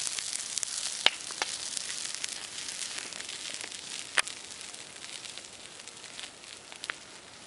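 Open wood fire burning with a steady hiss and sharp crackling pops, the loudest about a second in and around four seconds in, with a few more near the end. The hiss slowly fades.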